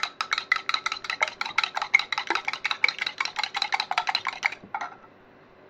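Metal whisk beating raw eggs in a glass measuring jug, a rapid even clinking of metal against glass at about eight strokes a second. It stops about four and a half seconds in.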